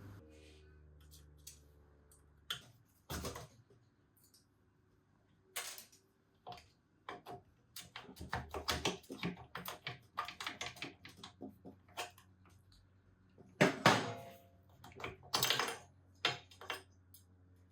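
Irregular clicks, taps and metal clinks of hand tools and small steel parts being worked on a dirt bike frame at a foot peg mount, with its split pin. The densest clatter comes about two thirds of the way through, and a faint steady hum runs under the first two seconds.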